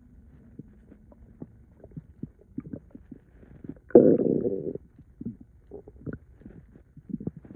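Stomach and intestines gurgling after a gallon of liquid was drunk: scattered short pops and gurgles, with one loud gurgle of under a second about four seconds in.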